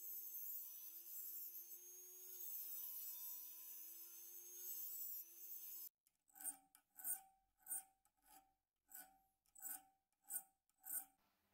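Dremel rotary tool with a small abrasive disc running steadily against a thin metal key blank. About six seconds in it cuts off, and a round needle file rasps back and forth over the key's cuts, about nine strokes at roughly two a second.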